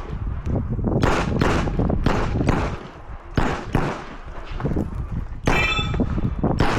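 Shots from a 9mm Glock 34 pistol fired in irregular strings, with pauses of up to about a second between them. About five and a half seconds in, a hit on a steel target rings briefly.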